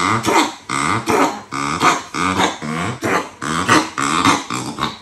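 A Pomeranian dog panting hard and laboured, with a pitched wheeze on each breath, about two breaths a second. This is strained breathing from slight exertion, the sign of a collapsed trachea that is only a quarter open.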